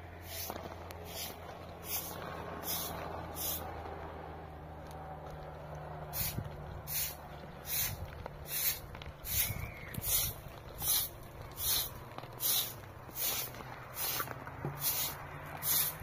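Short straw hand broom sweeping a flat, gritty earthen hut roof: brief scratchy swishes, a few scattered ones at first, then regular strokes a little more than one a second from about six seconds in, over a low steady hum.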